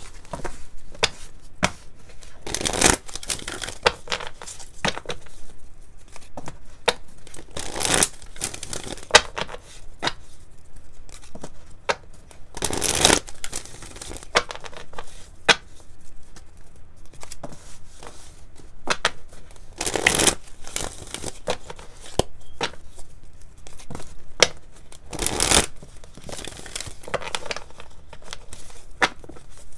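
Tarot deck being shuffled by hand: a quick patter of cards slipping and clicking against one another, with five longer, louder runs of card noise spread through it.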